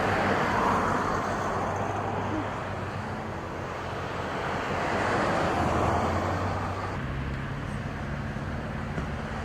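Outdoor vehicle noise: a low, steady engine hum under a broad rushing sound that swells twice, about half a second in and again around five to six seconds in. The hum changes pitch about seven seconds in.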